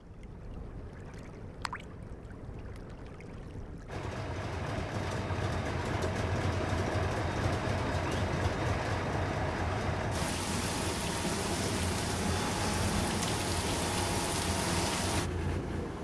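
The mobile salt-harvesting machine and its rail train running, a steady low mechanical rumble with a rushing noise that starts suddenly about four seconds in. A loud hiss, like water, joins for about five seconds near the end. Before that there is only a faint low rumble.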